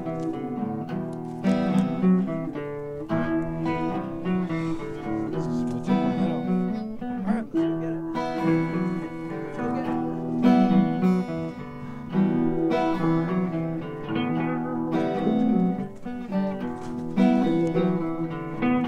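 Acoustic guitar music: plucked and strummed notes with a steady flow of changing chords.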